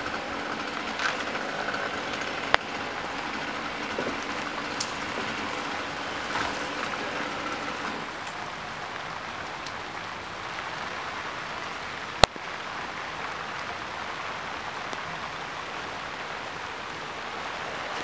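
Steady rain hiss, with a faint steady hum under it that fades out about halfway through. Two sharp clicks cut through it, the second, near the middle, the loudest sound.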